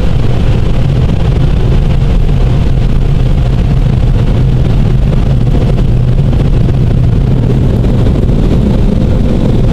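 Car wash blower dryers blowing at full force on the car to blast the water off, heard from inside the car: a loud, steady rush of air over a strong low hum.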